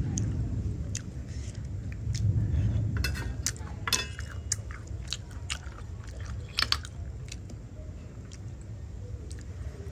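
Boiled snails being eaten: chewing and biting, with a cluster of sharp clicks about three to four seconds in and another near seven seconds, over a steady low rumble.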